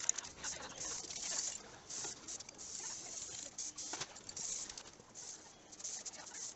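Aerosol spray paint can hissing in repeated short bursts as black paint is sprayed onto the fan.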